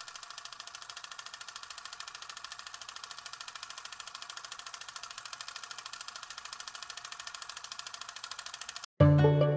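Film projector clatter: a rapid, even mechanical ticking that cuts off suddenly near the end, when music starts.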